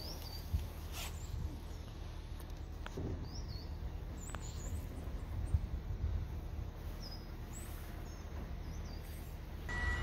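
Canal cruiser's engine running slowly with a steady low hum, while small birds chirp a few times.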